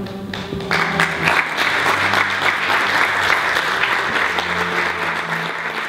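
Audience applause breaks out about a second in and carries on steadily, over quiet closing music that continues underneath.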